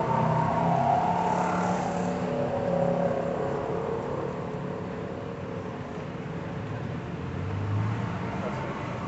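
Car driving slowly, heard from inside the cabin: a steady engine and road noise, louder in the first few seconds, with a brief low hum swelling near the end.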